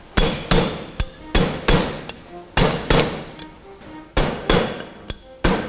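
Hammer striking a steel punch to drive a new bearing cup into the bore of a Toyota HDJ80 front differential nose housing. The sharp metallic blows come in a steady series, about two to three a second, with a short pause a little past the middle.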